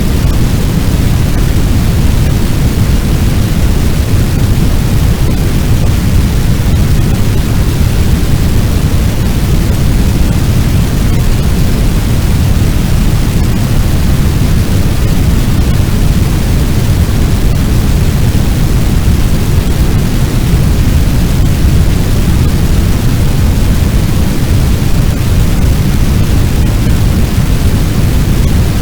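Fire sound effect: a loud, steady, low rumbling noise of a large blaze, without distinct crackles or pops.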